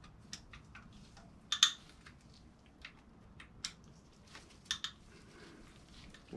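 Scattered, irregular metallic clicks and clinks of hand tools on an LQ4 V8 cylinder head as its bolts are loosened by hand; the loudest clink comes about a second and a half in. The bolts come loose easily, not as tight as their torque spec.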